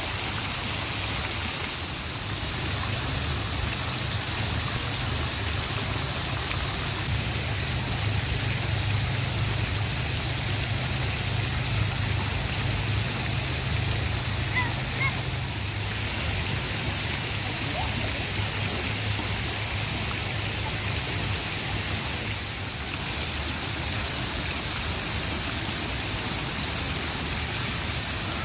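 Fountain water splashing steadily: thin jets arcing into a pool and water spilling over rock mounds. A low rumble runs underneath, stronger in the first half.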